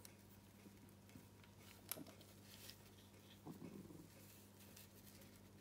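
Near silence: faint handling clicks and a soft rustle from the plastic spool of a flexi retractable leash being turned in the hands, with one sharper click about two seconds in.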